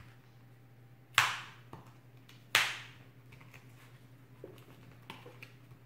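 Packaging of a set of felt-tip markers being opened by hand: two sharp snaps about a second and a half apart, then a few faint clicks.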